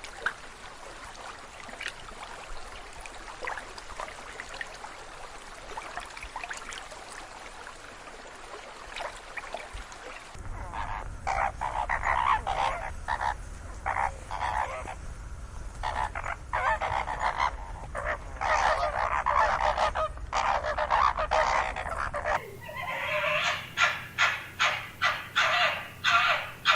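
Animal calls: a steady busy chorus, then from about ten seconds in loud, repeated bird calls in bursts. Near the end comes a run of evenly spaced calls, about two a second.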